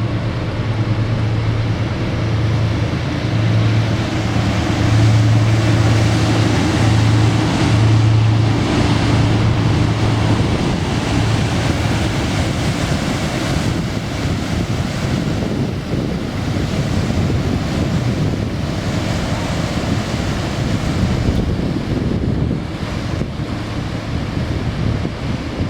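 Low, steady drone of a passing inland cargo ship's engine, fading out after about ten seconds, under constant wind rushing on the microphone.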